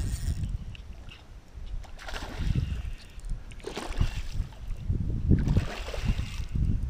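A hooked fish thrashing at the water's surface, splashing in three bursts about two, four and six seconds in, over a low rumble of wind on the microphone.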